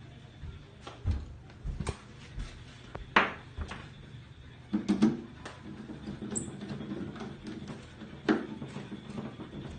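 Scattered clicks and knocks of a black wire being worked into the terminal of a miniature circuit breaker mounted on a plywood board, the sharpest knock about three seconds in.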